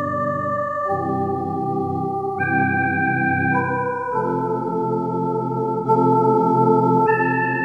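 Background music of slow, sustained organ-like chords, each held for a second or two before moving to the next.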